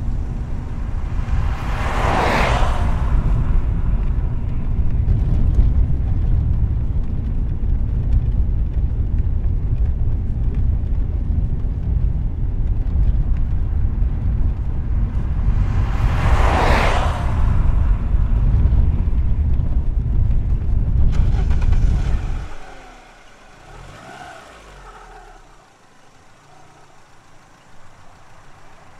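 Street traffic: a steady low rumble of road vehicles, with a car passing by about two seconds in and another about seventeen seconds in. After about twenty-two seconds the rumble drops away suddenly, leaving much quieter, fainter background sound.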